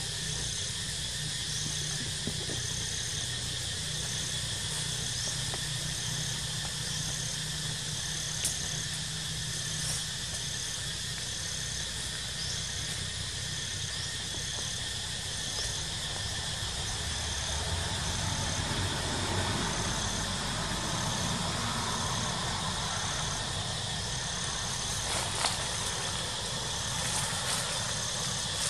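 Outdoor insect chorus: a steady high drone with a short high chirp repeating a little more than once a second, over a low rumble that swells for a few seconds past the middle, with a few faint clicks.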